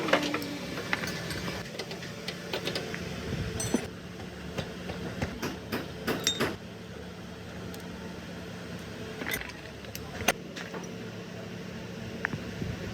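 Steady low mechanical hum with many sharp clicks and knocks over it, busiest in the first half.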